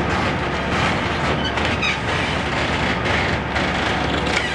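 A heavy vehicle engine running steadily, a loud continuous rumble with no break.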